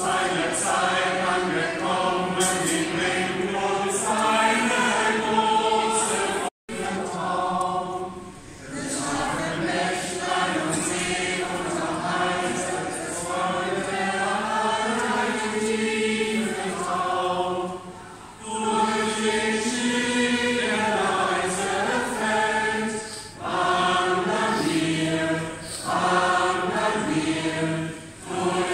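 A mixed choir of men's and women's voices singing a Christmas carol unaccompanied, phrase by phrase with short breaks between. The sound drops out for an instant about six and a half seconds in.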